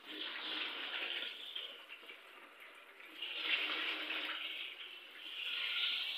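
Hot oil sizzling as marinated, gram-flour-coated chicken pieces deep-fry in a karahi, the hiss swelling louder three times.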